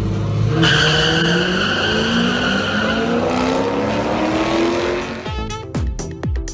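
Two cars launching side by side off a drag-strip start line, one of them a Corvette: the engines rev hard with pitch climbing steadily for about four seconds, over a high tire squeal through the first couple of seconds of the launch. Near the end it breaks into quick falling sweeps and clicks.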